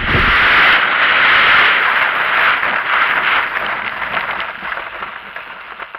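Engine and propeller of an RC model aeroplane, heard close up through the camera mounted on the model. It is a loud rushing noise without a clear pitch that fades steadily over the second half.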